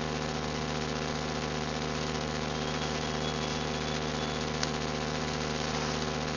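A steady low mechanical hum made of several even tones, unchanging throughout, with a faint thin high whistle lasting about a second in the middle.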